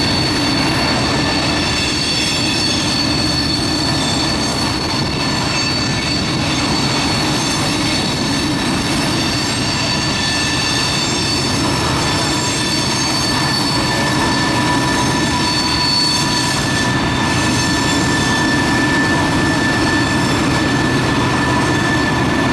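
Freight train of loaded trash cars rolling past: a steady rumble of wheels on rail, with several steady high-pitched squeals from the wheel flanges grinding around the sharp curve.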